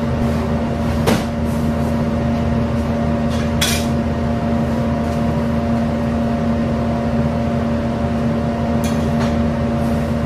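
Steady hum of running kitchen machinery with a few fixed tones, and three short clinks of dishes or utensils: about one second in, near four seconds, and near nine seconds.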